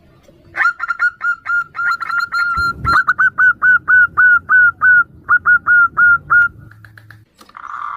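Zebra doves calling: a fast run of short, hooked notes, about four or five a second, that stops just before the end. There is a brief low thump near the three-second mark.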